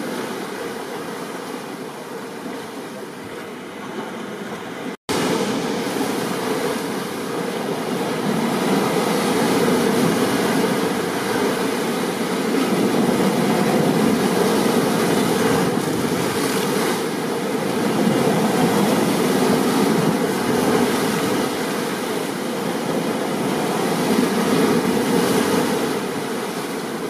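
Steady roar of stormy ocean surf mixed with rain. It cuts out for an instant about five seconds in, then comes back a little louder.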